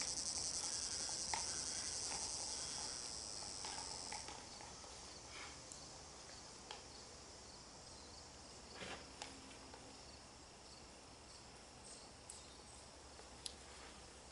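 A high, fast insect trill that stops suddenly about four seconds in. After it, only a few faint scattered clicks and taps.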